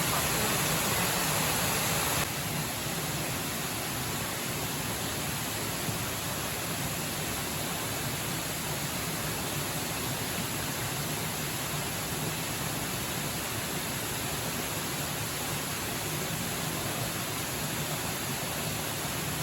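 Waterfall, a steady rush of falling water that dips slightly in level about two seconds in.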